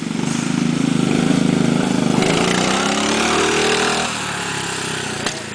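Small engine of a home-made motorised bathtub, built from an old go-kart and scooter, running under way. About two seconds in it revs up, the pitch climbing, then drops back to a lower steady run about four seconds in. A short knock near the end.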